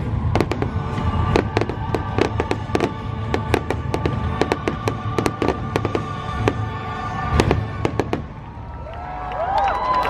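Fireworks going off in rapid bangs and crackles over music, the bangs stopping about eight seconds in.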